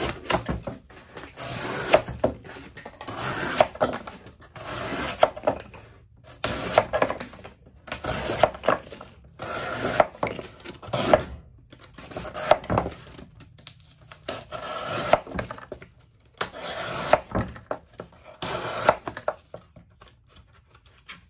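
Plain-edge section of a Benchmade Claymore's D2 folding-knife blade slicing through single-layer corrugated cardboard: about a dozen rasping cutting strokes, each about a second long with short pauses between, with sharp clicks inside the strokes.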